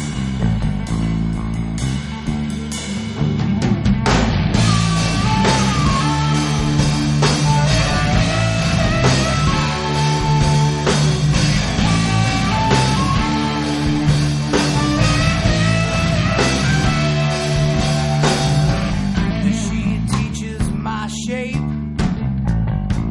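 Rock music with guitars, bass and drums: an instrumental passage of a song, with the full band coming in about four seconds in.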